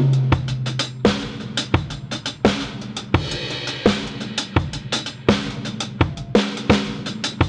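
Background music led by a drum kit, with bass drum and snare playing a steady beat.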